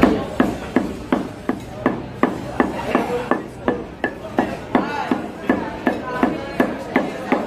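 Butcher's cleaver chopping beef on a round wooden chopping block: a steady run of sharp chops, about three a second.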